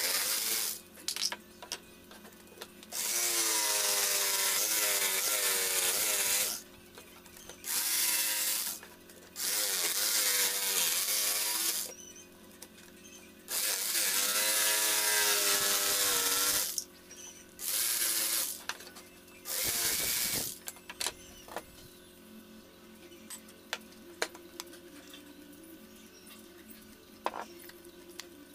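Electric jigsaw cutting plywood in repeated runs of a few seconds each, its pitch sagging and recovering as the blade works round the curve of a speaker hole. After about twenty seconds the saw stops, leaving only light clicks and knocks of handling.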